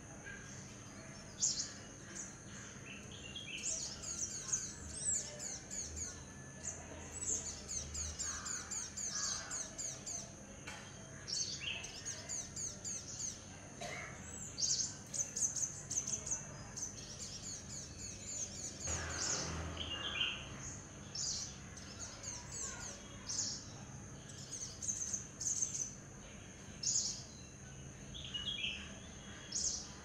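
Sunbirds chirping: quick runs of short, high, falling twittering notes, repeated again and again, over a steady high-pitched hum.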